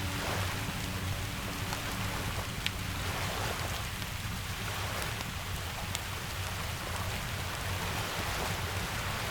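Steady rain falling over a low, even rumble, with a few sharp crackles from a wood fire.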